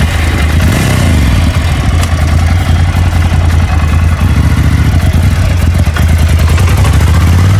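Ducati Scrambler Nightshift's 803 cc air-cooled L-twin idling steadily through its stock exhaust, a loud, even low throb.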